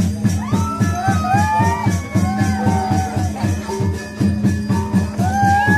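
Balinese gamelan music: fast, even strokes of clashing cymbals and drums over a steady low gong drone, with a high, wavering melody line gliding above it.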